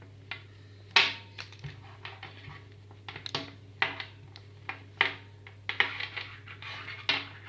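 Handling noise from a nylon-braided USB cable being pulled out and stretched by hand: irregular scratchy rubs and rustles with small clicks, the loudest about a second in. A steady low electrical hum runs underneath.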